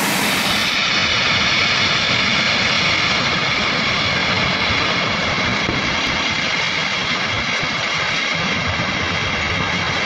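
Steady, loud roar of a flooding river in spate, muddy torrent water rushing.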